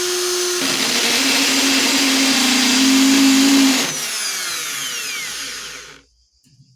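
Electric drill with a countersink bit cutting into a mild steel plate to countersink the pritchel hole: the motor's pitch drops as the bit bites, with a loud grinding cutting noise. After about four seconds the cutting stops and the motor spins down, falling in pitch, and goes quiet about six seconds in.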